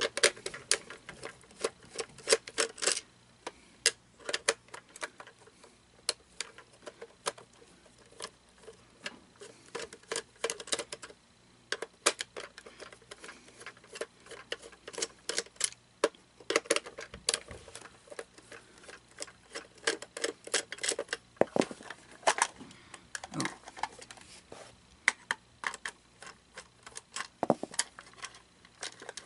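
A screwdriver backs screws out of the plastic housing of a Gemmy animatronic toy: runs of small, quick, irregular clicks and scrapes, with an occasional louder plastic knock.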